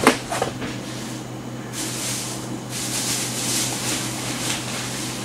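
Rustling and handling noise, a fluctuating hiss like packaging being picked through, with a couple of clicks at the start and a steady low hum underneath.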